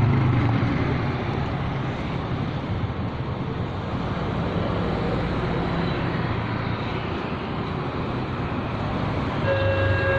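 Steady road traffic noise, with engines and tyres, at a railway level crossing. Near the end, the crossing's new electronic warning siren starts up with a steady, sustained tone, the signal that a train is approaching.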